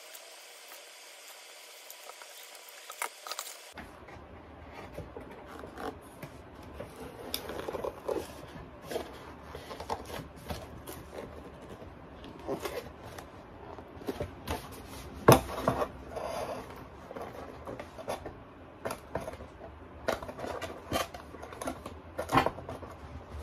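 Foam-board pieces being handled, fitted and pressed together on a cutting mat: scattered light taps and knocks with rubbing and scraping of board and paper, starting a few seconds in, and one sharper knock about two thirds of the way through.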